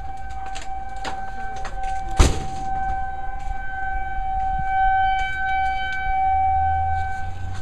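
Outdoor tornado warning siren sounding one steady tone, swelling and fading in loudness, with a single sharp knock about two seconds in.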